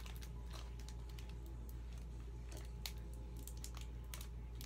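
Light, irregular clicks and crinkles of a Pokémon booster pack's foil wrapper being handled and worked open by hand, over a steady low hum.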